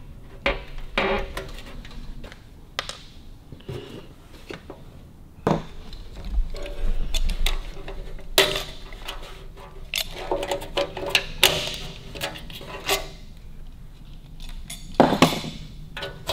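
Irregular metallic clinks, knocks and clanks as a steel sidecar mudguard and its bracket frame are handled and turned over on a cloth-covered workbench, with the loudest knocks near the end.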